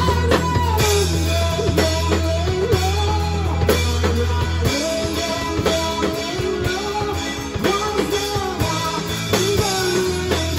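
A small live band rehearsing a song: a woman sings the melody into a microphone over electric keyboard, bass guitar and drum kit, with a strong, steady bass line.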